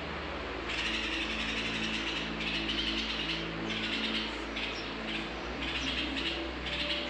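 Bulbul nestlings begging from the nest: raspy, hissing calls in a string of short bursts, about one a second, over a low steady hum.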